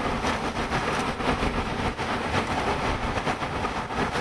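Car interior while driving: steady road and wind noise, with frequent irregular taps on the body.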